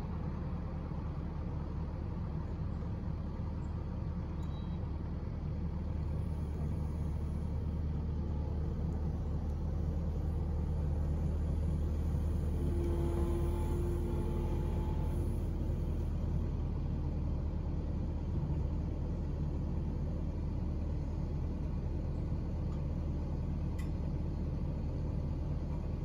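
Kubota compact track loader's diesel engine running steadily with a low rumble under load. It grows somewhat louder in the middle as the loader raises a crate of split firewood.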